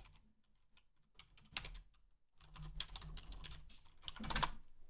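Typing on a computer keyboard: a few scattered keystrokes, then a quicker run of key presses from about halfway through, loudest near the end.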